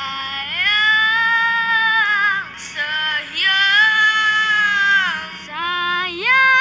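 Young boys singing a Malay pop ballad into handheld microphones, one short phrase each, cut together in turn. The phrases are long held notes with vibrato.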